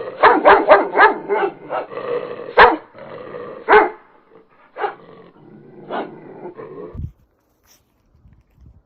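Dog barking: a quick volley of about four barks, then single barks about a second apart with a continuous growl between them, stopping about seven seconds in.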